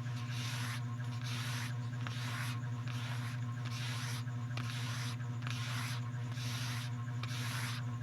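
Rhythmic scratchy rubbing strokes, about one and a half a second, over a steady low hum.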